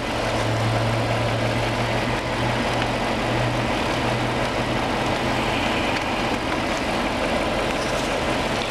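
Mercedes E420's V8 engine idling steadily, heard from close beside the engine bay.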